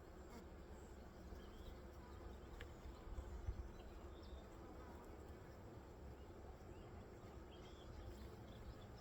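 Faint steady hum of honeybees buzzing around an open hive, over a low rumble, with a couple of tiny clicks a few seconds in.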